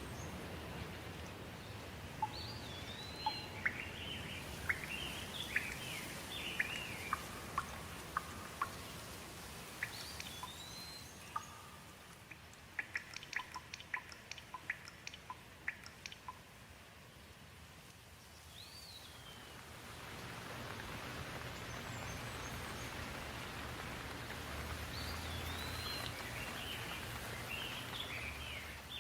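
Steady rain with birds singing over it in short, repeated phrases of rising and falling whistles. About halfway through comes a quick run of sharp ticks.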